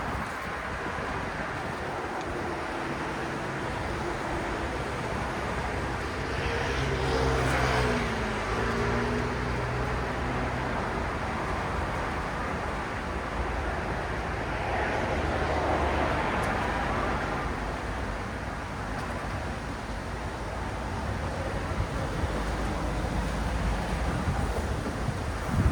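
City road traffic: a steady wash of tyre and engine noise, with two vehicles passing more loudly, about a third of the way in and just past halfway. The first pass carries an engine hum that drops in pitch as it goes by.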